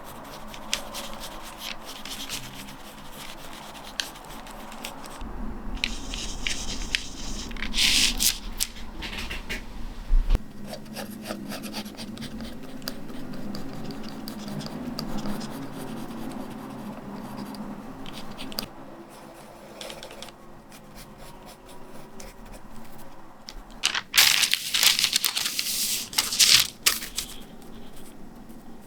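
Soft scratching and rubbing of art tools on paper; from a little over halfway through, a pencil sketching on paper, with a few louder rustles and scrapes near the end.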